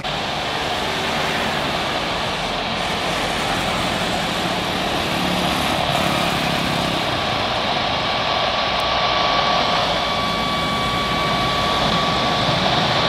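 Jet airliner engines running steadily on landing approach, an Airbus A330 drawing closer. About halfway through, a high steady engine whine joins the roar, which grows slightly louder toward the end.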